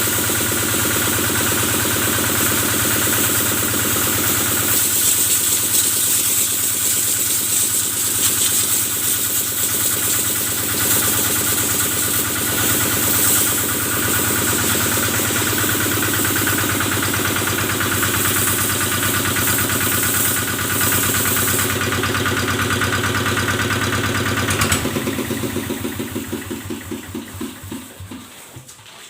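Kubota diesel engine running steadily with a high hiss over it, then shut off about 25 seconds in, its beats slowing and fading as it runs down to a stop.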